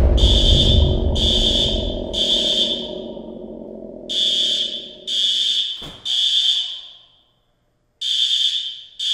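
Smoke alarm beeping in groups of three: three high beeps about a second apart, a pause, then three more, repeating, each beep leaving a fading echo. A low rumble fades out over the first three seconds, and a single short click comes about six seconds in.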